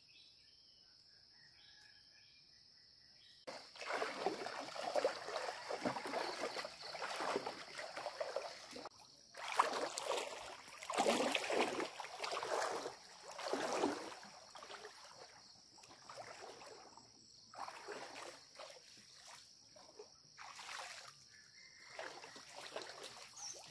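Water sloshing and splashing in irregular surges as a person wades and works through a shallow stream. It starts a few seconds in and is heaviest through the middle.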